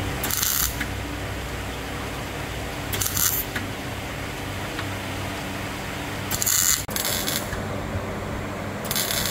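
MIG welding on car-body sheet steel: four short bursts of arc crackle, each about half a second long and roughly three seconds apart, laying stitch welds along the pillar-to-sill seam. A steady low hum runs underneath.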